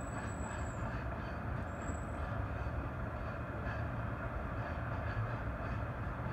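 Container freight train rolling past: a steady low rumble of the wagons on the rails, with faint wheel clicks.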